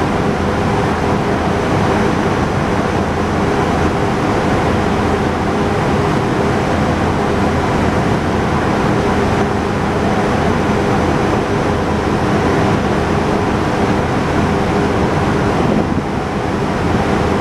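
A GE Silverliner IV electric railcar standing at the platform, its onboard equipment giving off a steady hum with a constant rushing noise. The level dips slightly near the end.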